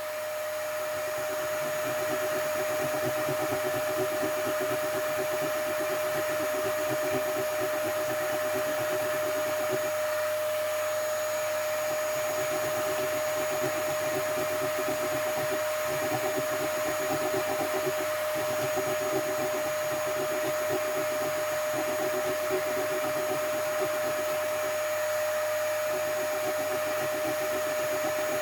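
A small electric motor or blower running steadily with a constant whine, its lower note wavering as if under changing load every few seconds.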